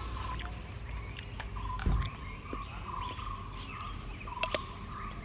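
Forest ambience: a steady high insect drone, and a short call near 1 kHz repeated about every half second. A soft thump comes about two seconds in, and there are a few light clicks.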